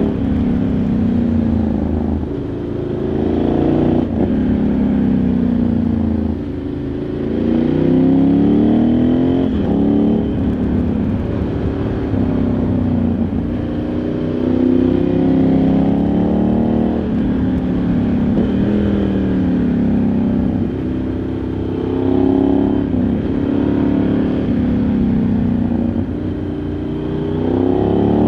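Ducati Multistrada 1100S's air-cooled L-twin engine heard from onboard, revving up and dropping back again and again as the bike accelerates, shifts and slows through the bends of a mountain road.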